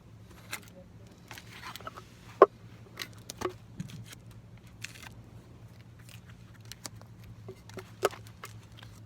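Irregular light clicks and knocks, with two sharper knocks about two and a half seconds in and near the end, over a faint steady hum.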